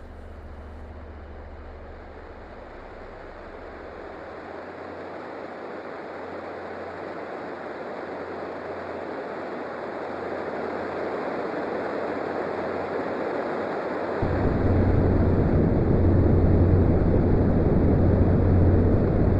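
Electronic sound-design interlude: a steady rushing noise, like surf or wind, that slowly swells. About fourteen seconds in it jumps louder as a deep hum joins it.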